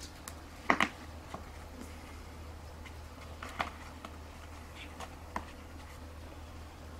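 Siamese kitten clawing and biting at a deer mask: a few short sharp taps and scratches, the loudest double tap about a second in, over a low steady hum.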